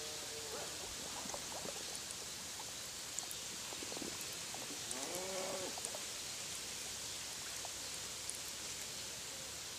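A steady hiss with one short pitched animal call about five seconds in that rises and then falls, and a few faint ticks.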